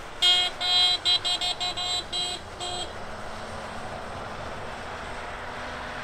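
Camper van horn honking goodbye as the van drives off: two longer toots, then a quick run of short ones, about nine in all over two and a half seconds.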